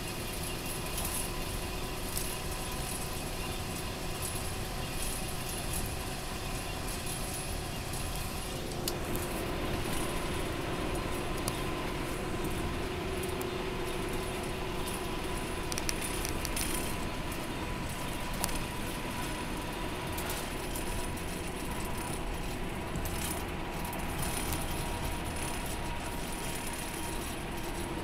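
Cabin noise of an express coach at highway speed: steady engine drone and tyre roar, with light jangling rattles from the cabin. The engine note shifts slightly about nine seconds in.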